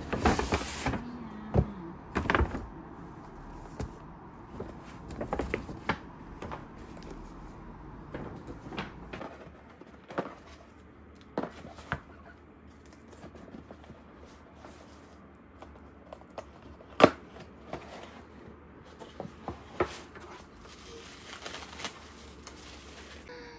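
Gift unboxing handling sounds: a paper shopping bag and a cardboard box being handled, a ribbon pulled off the box, and tissue paper rustling, with scattered light taps and clicks. The loudest is a single sharp knock about 17 seconds in.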